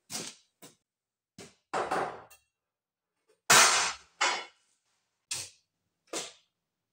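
Solid 40 mm chromed, hardened steel rods knocking and clanking against the steel C-channel die of a homemade press brake as they are set down and shifted into place: about eight separate metal knocks, the loudest about halfway through.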